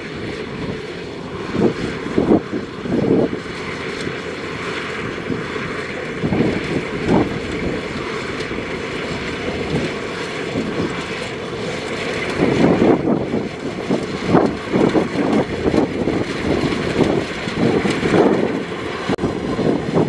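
Kubota rice combine harvester running while it cuts and threshes rice: a steady engine and machinery noise, with uneven low surges that grow heavier in the second half.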